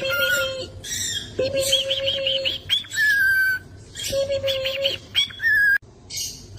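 Cockatiel whistling a repeated phrase: a held low note, a quick warble and a higher whistle that falls slightly, over and over.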